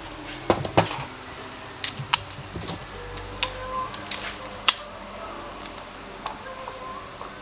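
Scattered sharp clicks and clinks of tools and parts being handled during scooter servicing, irregular and a few loud, over a faint steady hum.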